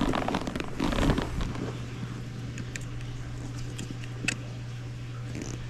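Faint metal scraping and a few small clicks as a screw is tightened down on a rifle bolt, setting the extractor spring, over a steady low hum.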